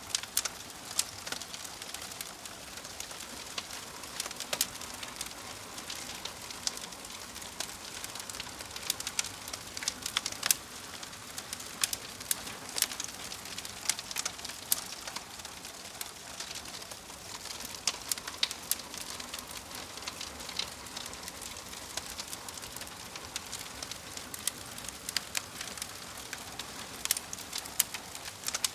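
Logs burning in a fireplace: a steady soft hiss with frequent, irregular sharp crackles and pops.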